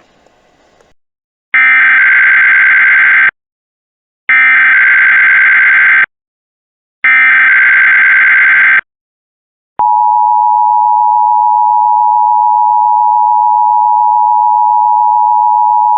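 Start of an Emergency Alert System Required Monthly Test on a radio broadcast. Three identical bursts of the digital SAME header data warble, each about two seconds long with about a second of silence between. About ten seconds in, the steady two-tone EAS attention signal begins and holds.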